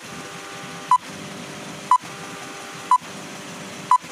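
Film-leader countdown sound effect: a short beep, the same pitch each time, about once a second, over a steady hiss.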